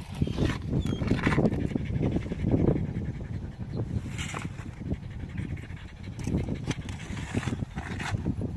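A mixing hoe working wet Quikrete concrete in a plastic mixing tub, scraping and sloshing in irregular strokes.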